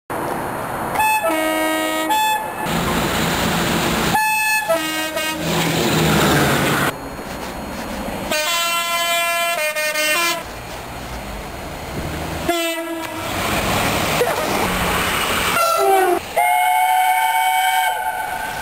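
Two-tone horns of British diesel trains sounding in about half a dozen short clips cut together, some blasts stepping between two notes. Between the horns comes the rumble of trains passing.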